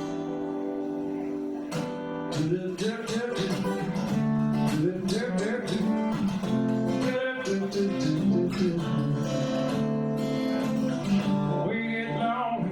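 Acoustic guitar playing a song's introduction: a chord rings out, then about two seconds in a strummed and picked rhythmic pattern begins over changing chords.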